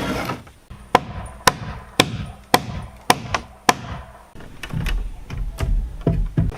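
Blows of a hand tool on wood, sharp and evenly spaced at about two a second, turning to lighter, irregular knocks near the end.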